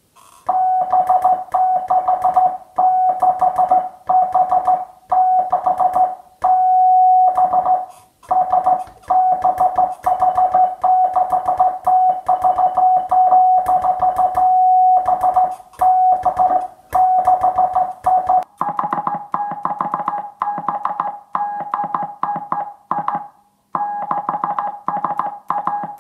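Morse code on a single steady beat note from a communications receiver's speaker: the 7.030 MHz CW signal of a one-transistor transmitter, keyed on and off in dots and dashes with a click at each keying. About three-quarters of the way through the note moves slightly higher and a lower buzz joins it.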